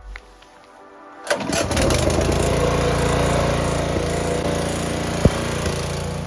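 Petrol pressure washer cutting in suddenly about a second in, after a short knock, then running steadily: a small engine under load with the hiss of the water jet.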